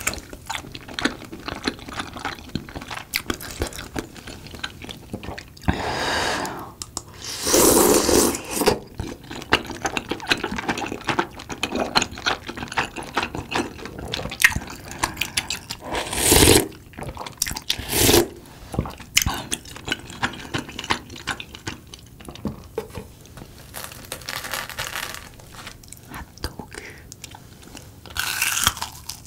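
Close-up eating sounds: wet chewing of rice cakes and fried snacks, with several long slurps of spicy tteokbokki broth from a ladle spread through, the loudest about a third of the way in and again past the middle.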